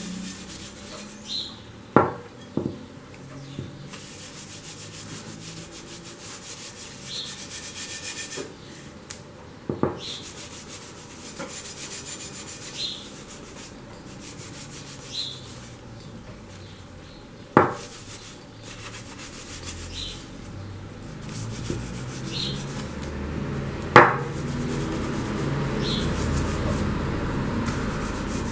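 Paper towel rubbing over a painted glass bottle, buffing the paint to a shine: a steady, dry rubbing broken by four sharp knocks, the loudest near the end.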